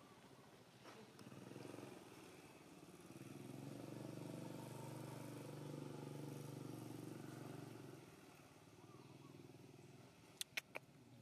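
Faint engine hum from a passing motor vehicle, swelling and then fading away. Three sharp clicks come close together near the end.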